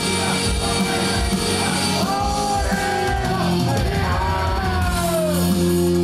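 Japanese idol pop song performed live: a backing track with a female voice singing, the vocal line sliding down in pitch about five seconds in.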